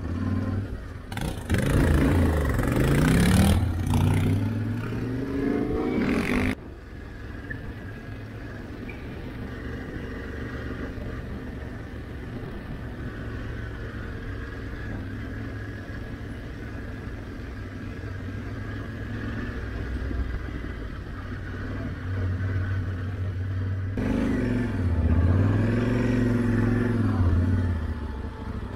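Motorcycle engine revving up and down, with a rushing noise over it. About six and a half seconds in, the sound drops off suddenly to a steadier, quieter engine note at low revs. Near the end the revs rise and fall once more.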